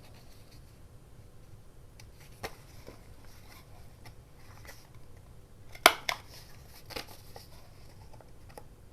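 Quiet handling of paper and craft tools, with a few sharp clicks or taps, the loudest about six seconds in.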